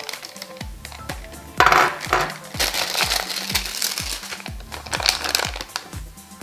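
Background music with a steady thumping beat, over irregular crinkly, crackling handling noises. The loudest handling noise comes about a second and a half in.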